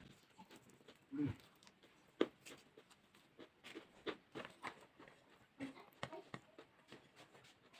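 Close-miked chewing of food, with irregular crisp crunches and mouth smacks, several a second.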